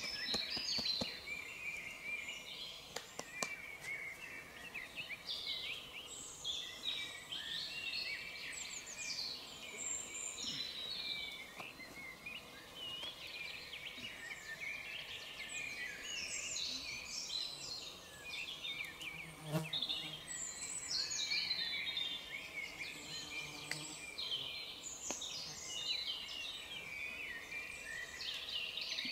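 Several woodland birds singing over one another in a busy, continuous chorus of quick falling trills and chirps, with a couple of faint knocks.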